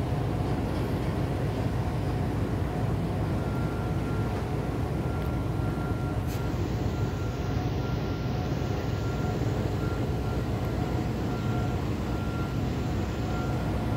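Steady low mechanical rumble of engines or machinery, with a faint high tone that comes and goes from a few seconds in.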